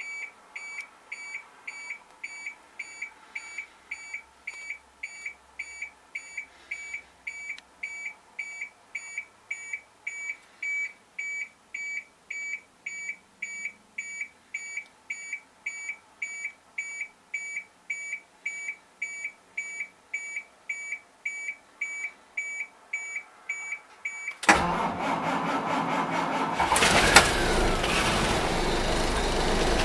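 A dashboard warning buzzer beeps about twice a second while the intake (grid) heater is on. About 24 seconds in, the starter cranks the Caterpillar 3126 7.2 L inline-six turbo diesel; it fires with a sharp bang about three seconds later and runs loudly. This is a cold start at −11 °F, without the block heater plugged in.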